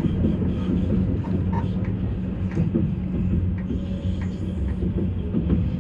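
Passenger train running, heard from inside the carriage: a steady low rumble with scattered small clicks and rattles.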